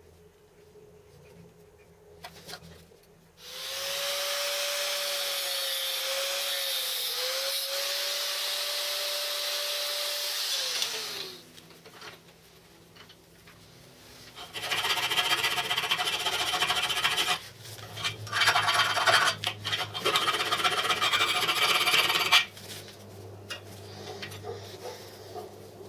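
An electric power tool runs for about seven seconds, its whine dipping briefly under load and then winding down as it stops. A few seconds later, a hand file rasps on a steel piece held in a bench vise in uneven strokes for about eight seconds.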